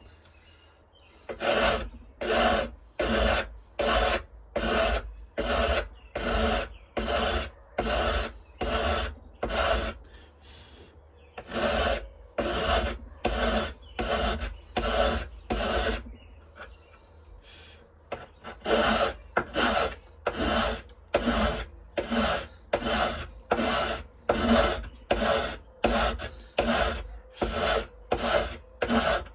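Hand file rasping across the end of knife handles in steady strokes, about one and a half a second, cutting a 45-degree bevel. The filing pauses briefly twice.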